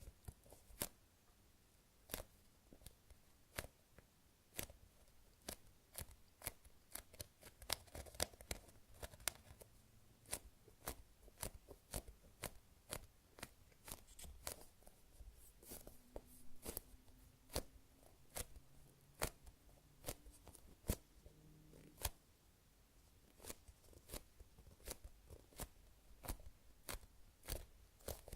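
High-rebound foam sweet-potato squishy toys being squeezed and handled close to the microphone: an irregular string of sharp crackles and taps, with the slightly sticky foam peeling off the fingers.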